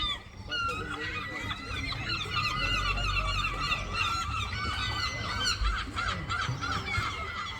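A crowd of birds calling over one another: many quick, overlapping honking and squawking calls.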